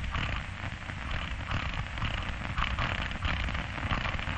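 Steady crackling hiss with fine pops, the surface noise of an old optical film soundtrack.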